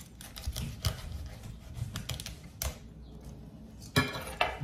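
Kitchen knife cutting through blue crab shells on a wooden cutting board: a run of irregular crunching clicks and cracks, with one sharp knock near the end.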